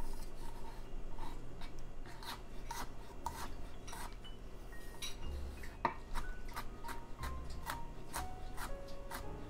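Chef's knife mincing garlic on a wooden cutting board: a run of sharp knife strikes against the board, about two to three a second, quickening in the second half.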